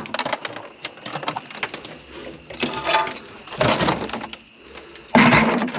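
Scrap metal parts being handled: clinks, knocks and scraping, with louder clattering about two-thirds of the way in and again near the end.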